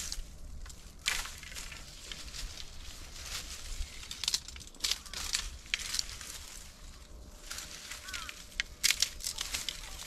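Rustling and crackling of cut bamboo and leafy branches being handled, with irregular snaps and crunches, the loudest about a second in, in the middle, and near the end.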